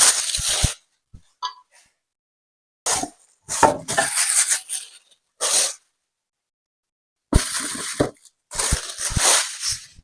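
Packaging being handled and pulled off a boxed set of ceramic pots, a rustle in about six short bursts with brief pauses and a few light knocks.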